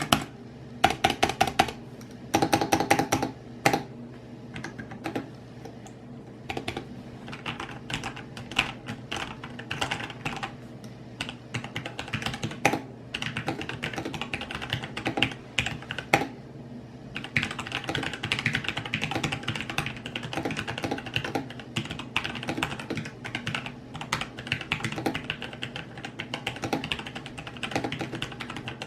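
Typing on a Logitech G513 mechanical keyboard with Romer-G switches: a dense, irregular run of keystrokes, with the loudest clatter in the first few seconds.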